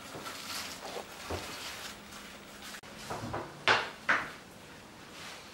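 Light knocks and clatter of things being handled and set down on a hard surface, with two sharp clacks close together about three and a half seconds in.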